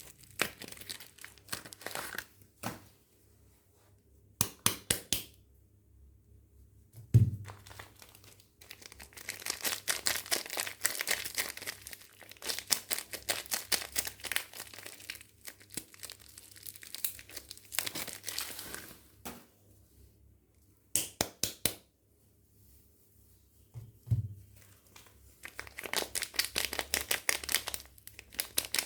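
Soap bar packaging being crinkled and torn open by hand in bursts with short pauses between, and a soft low thump about seven seconds in and again about 24 seconds in.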